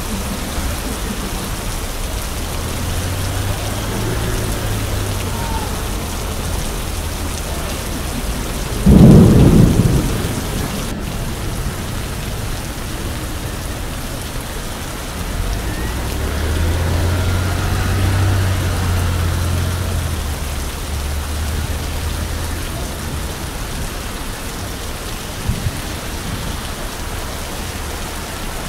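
Steady rain falling on a wet city street, with a low rumble of passing traffic. A loud low-pitched burst lasting about a second stands out about nine seconds in.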